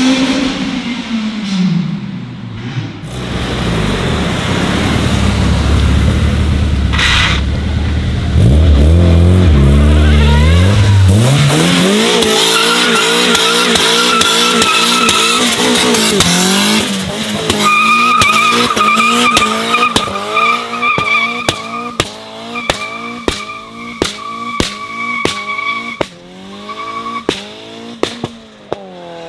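A sixth-generation Honda Civic coupe revving hard and pulling away with wheelspin, its engine note climbing again and again. In the second half its tyres squeal in a steady high tone, while the engine climbs and drops over and over with a sharp crack at each drop. At first a different engine note falls away.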